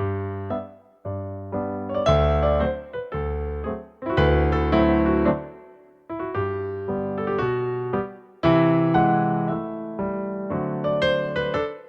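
Solo piano ballet-class accompaniment: chords and melody notes struck in even phrases, each fading before the next.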